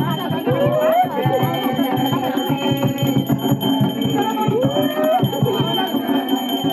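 Music with steady, dense drumming and a melody that swoops upward twice, once about half a second in and again near five seconds.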